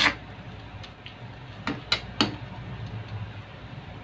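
Metal spatula scraping and knocking against a metal wok while stirring cubed pork: one sharp clink right at the start, then three quick knocks about two seconds in, over a low steady hum.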